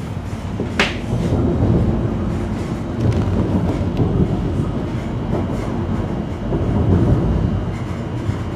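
Passenger train running at speed, heard from inside the carriage: a loud, steady rumble of wheels on the rails, with one brief sharp noise about a second in.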